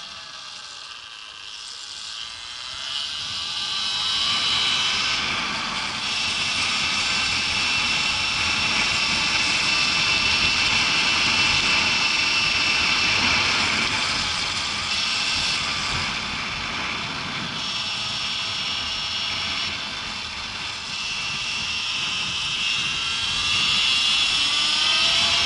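Motorbike riding along a paved street, heard from the rider's helmet: a steady high whine with wind and road noise, which swells after about three seconds as the bike picks up speed.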